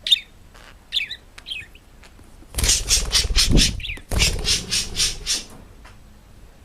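A bird's short, high chirps, then a loud, rapid run of squawking, about five pulses a second, that stops briefly midway and ends about two seconds later.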